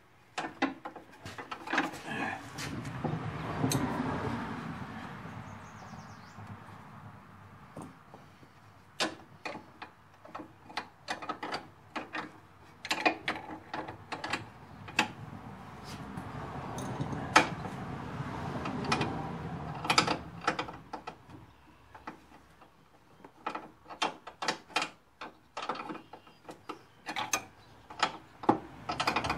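Irregular metallic clicks and clanks of hand tools being worked on a lawn tractor during a drive-belt repair, with two spells of softer shuffling in between.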